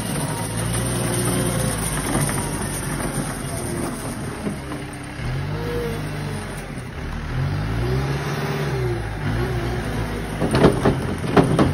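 Wheel loader's diesel engine running, revving up and down several times as the snow-plow loader manoeuvres, with a few sharp knocks near the end.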